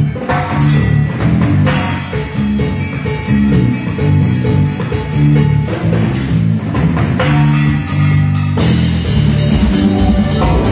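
Live cumbia band playing through a PA system in a large hall: drum kit, electric guitar and deep bass notes over a steady beat.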